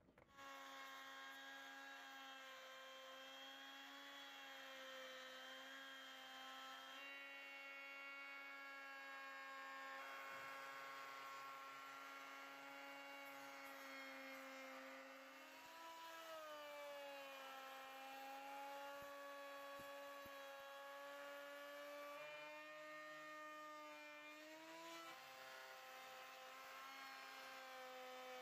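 Electric wood router's motor running with a steady whine, its pitch sagging and slowly recovering twice, about halfway through and near the end, as the bit takes load cutting the wood.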